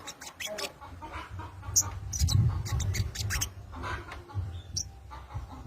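Sogon bird (sogok ontong) calling, a run of short, sharp chattering notes in quick irregular succession, over a low rumble.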